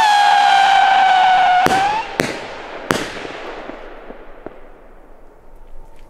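Lesli Sputnik howling fireworks tubes: a shell's loud, steady howl in flight, slowly sinking in pitch, cuts off about two seconds in. Three sharp bangs of bursting shells follow in quick succession, their echoes fading, with a couple of fainter pops near the end.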